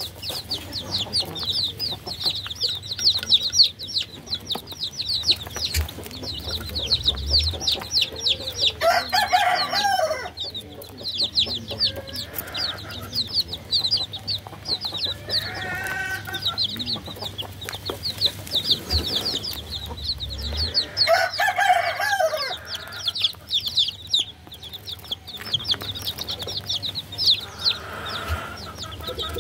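A group of baby chicks peeping constantly in quick, short, high chirps. Three longer, lower calls stand out: about a third of the way in, around halfway, and about two-thirds through.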